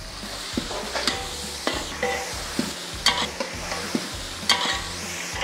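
Mutton pieces and fat sizzling as they fry with shallots, chillies and mint in a large metal pot, stirred with a long metal ladle. The ladle scrapes and knocks against the pot several times.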